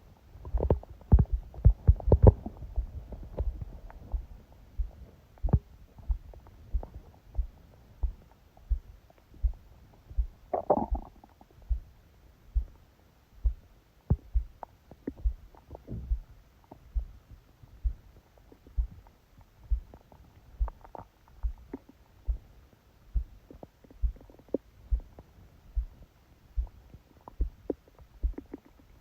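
A sleeping person's heartbeat and stomach, picked up by a phone pressed onto the belly. The heart beats steadily and fast, about one and a half beats a second. Over it the stomach gurgles, in a busy run of gurgles in the first few seconds and a short rumble about eleven seconds in.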